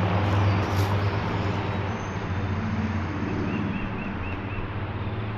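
A low, steady engine hum that slowly fades, with a short run of about five bird chirps midway.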